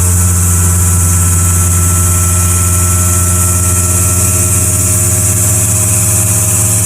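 CNC machine running steadily: a strong low hum with a stack of steady overtones, and a faint high whine over the first few seconds.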